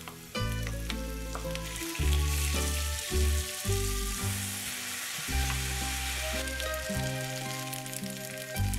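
Food sizzling as it fries in a pan, loudest through the middle, under background music with bass notes.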